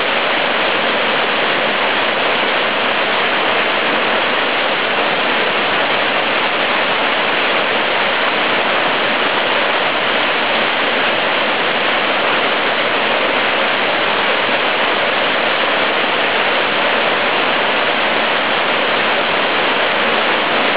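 Small waterfall on a little stream, water pouring and splashing in a steady, unbroken rush.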